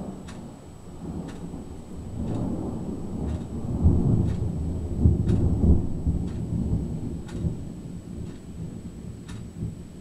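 Thunder rolling: a low rumble that builds over a few seconds, peaks about halfway through, then rolls away.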